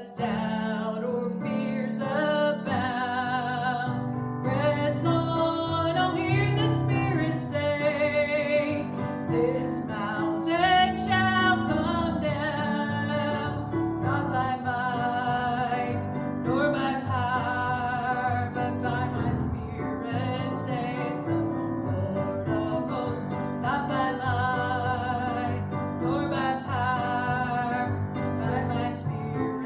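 Gospel song: a solo voice singing with vibrato over piano accompaniment.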